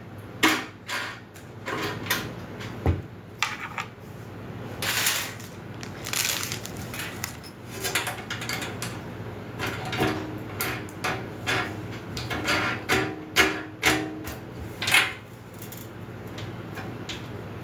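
Grill parts being handled and fitted together during assembly: an irregular series of knocks, clicks and clattering rattles over a steady low hum.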